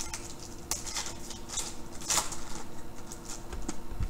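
Foil wrapper of a Prizm baseball card pack crinkling and tearing as it is ripped open by hand, a run of crisp crackles that is loudest about halfway through.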